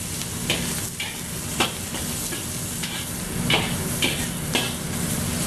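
Snow peas and onions sizzling in a hot wok, stir-fried with a metal spatula that scrapes and knocks against the pan every second or so.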